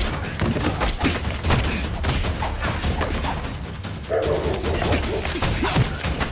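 Hand-to-hand fight sound effects: a quick run of sharp hits and smacks over a music track with a low, steady beat.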